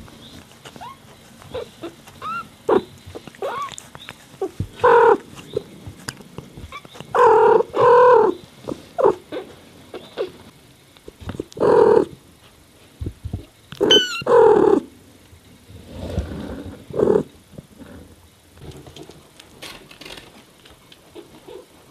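Mother cat talking to her newborn kittens in short chirping meows and trills, a dozen or so calls coming in ones and twos, the loudest about five, seven to eight, twelve and fourteen seconds in. A thin, high, wavering kitten squeak comes about fourteen seconds in.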